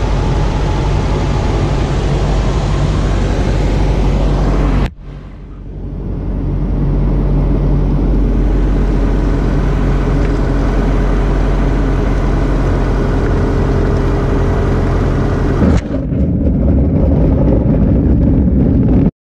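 Steady drone of a light aircraft's engine heard from inside the cockpit during the landing. The sound drops sharply about five seconds in and builds back over the next few seconds, with another brief dip near the end.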